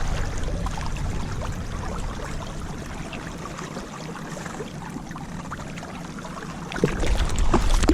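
Water lapping and sloshing around a small boat such as a kayak, with a low wind rumble on the microphone that eases off mid-way and returns strongly near the end, and a few faint knocks.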